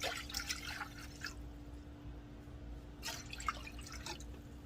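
Water being poured into a pot, one cupful at a time, in two short spells of splashing, about a second each: one at the start and one about three seconds in. A faint steady hum runs underneath.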